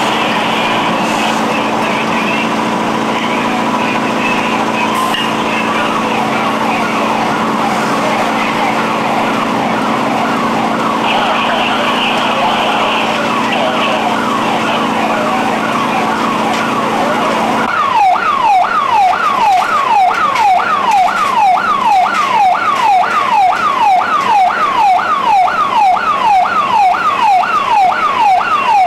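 Emergency vehicle siren cycling in quick falling sweeps. It is fainter under a steady hum and noise at first, then about 18 seconds in, after an abrupt change, it is loud and close at about two sweeps a second.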